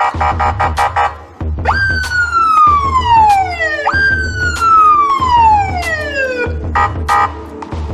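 Electronic police-style siren, loud. It starts with a rapid pulsed yelp of about four or five beeps a second. About two seconds in it switches to two wails, each jumping up and then falling slowly over about two and a half seconds, and the pulsed beeps return near the end.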